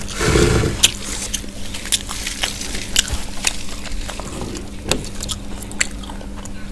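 Close-up eating sounds of fried chicken being chewed: wet mouth clicks and smacks scattered through, with a short breathy burst at the start, over a steady low hum.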